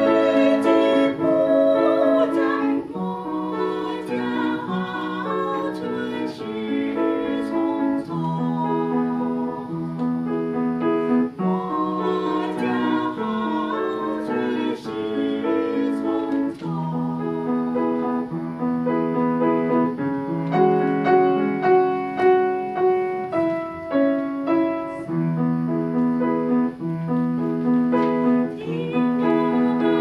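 Two women singing a duet with piano accompaniment, the piano's held chords steady beneath the voices.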